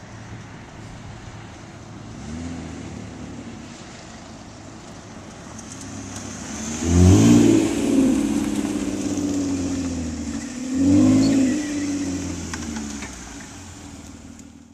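A Toyota Camry's 3.5-litre V6 runs through an axle-back muffler-delete exhaust that keeps the factory resonators, giving a deep exhaust note as the car accelerates past. There is a light rev about two seconds in, then two strong revs that rise and fall, about halfway through and again some four seconds later; the first is the loudest. It fades toward the end.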